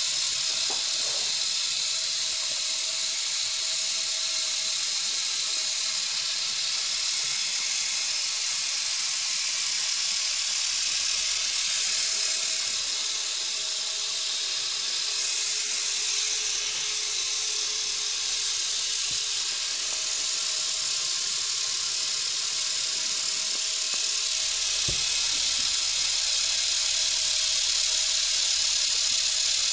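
Electric motor of a Lego Technic propeller car whirring steadily as it spins the propeller, a high, even buzz that grows slightly louder near the end.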